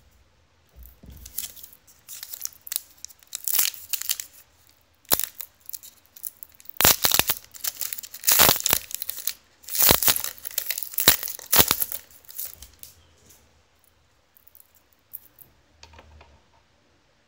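A Panini Brilliance basketball card pack being torn open, its wrapper ripping and crinkling in a run of rips and rustles that are loudest in the middle, followed near the end by a few faint rustles.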